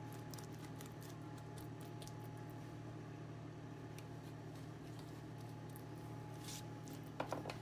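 Pastry brush dabbing butter and milk onto raw bread dough: faint soft taps and ticks over a steady low hum, with a couple of louder taps near the end.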